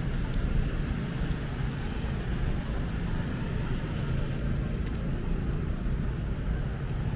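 Steady low rumble of city street ambience with road traffic.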